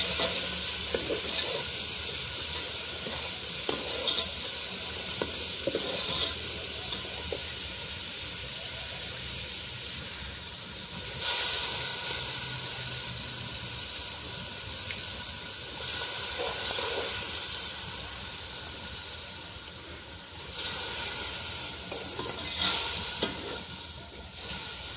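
Biryani masala of spices, chilli and tomato sizzling in an aluminium pot over a wood fire: a steady hiss that slowly fades. A few louder scrapes come from the metal skimmer ladle stirring it, one about halfway and two near the end.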